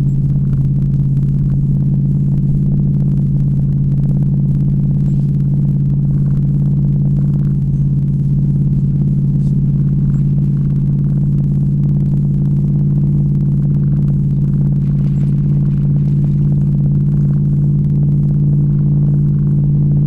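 Plow truck's engine and drivetrain running at a steady cruise, heard inside the cab as a loud, even low drone with no change in pitch.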